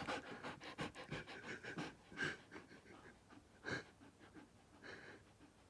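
Husky panting close by, quick even breaths that fade after about two seconds. A few faint short sounds follow.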